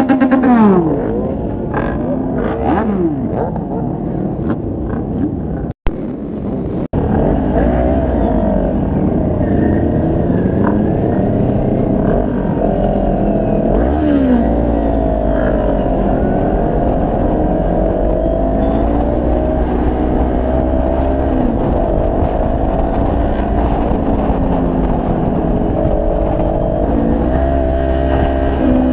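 Sport motorcycle engines revving among parked bikes. After a brief gap, a Kawasaki Ninja's engine runs steadily as it is ridden, its note rising and falling with the throttle.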